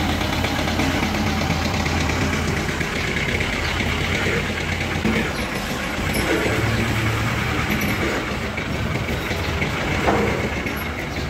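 A vehicle engine running steadily with a low hum that shifts in tone about six seconds in. A brief knock about ten seconds in.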